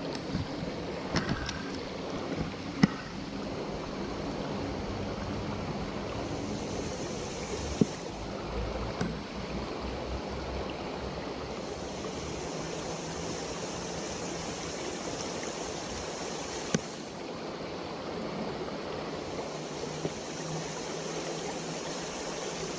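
Stream water rushing steadily, with a few sharp clicks and a high, even hiss that comes and goes three times.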